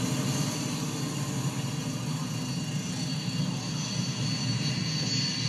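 Truck engine starting and running with a steady low rumble, heard from a TV's speaker with a steady hiss over it.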